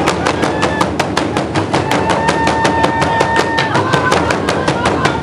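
Ensemble of traditional Burundian drums (ingoma) beaten with wooden sticks in a fast, even rhythm of about five or six strokes a second. A long, high held note sounds over the drumming from about two seconds in until nearly four.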